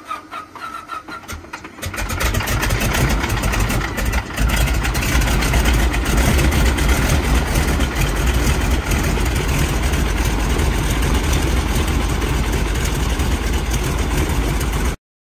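Single-engine turboprop light aircraft starting up: a faint whine, then about two seconds in the engine catches and runs loud and steady with a heavy low rumble. The sound cuts off abruptly near the end.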